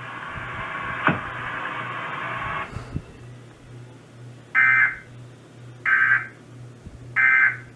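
Emergency Alert System end-of-message code played over the radio: three short digital data bursts, about a second and a quarter apart, marking the close of the test alert. Before them a steady radio hiss stops abruptly about two and a half seconds in, and a low hum runs underneath.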